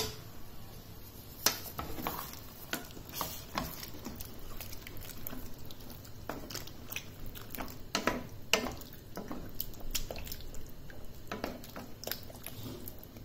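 A flat spatula stirs a watery potato-and-pumpkin curry, just thinned with a glass of water, in a stainless steel pan. Wet squelching, with irregular scrapes and taps of the spatula against the pan.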